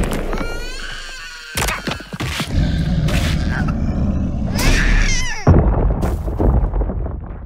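Animated monster-fight sound effects over music: creature cries near the start and again about five seconds in, with heavy booming impacts around a second and a half, three seconds and five and a half seconds, fading out near the end.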